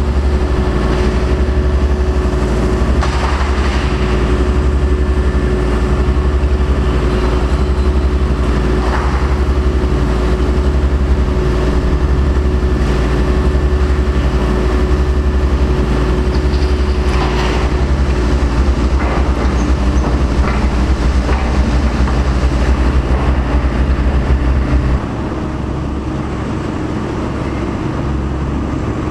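Heavy demolition excavators' diesel engines running with a steady, pulsing low rumble, with a few clanks of scrap steel being handled. About 25 seconds in the sound steps down in level and changes.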